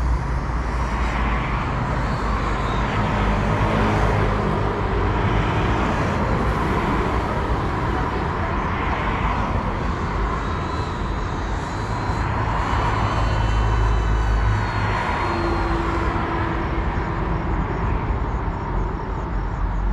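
GEPRC Cinelog 35 cinewhoop's motors and ducted propellers buzzing, swelling and fading every two to three seconds as the throttle changes, over a steady low rumble.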